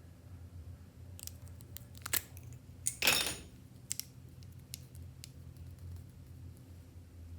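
Clear slime being pressed and mixed, giving scattered sharp clicks and pops, with one louder, longer crackling squish about three seconds in.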